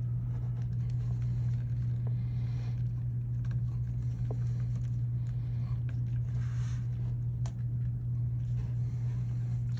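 A steady low hum, with faint handling rustles and small plastic clicks as a gray 6-pin jumper connector is pushed into a golf car's wiring harness. One sharper click comes near the end.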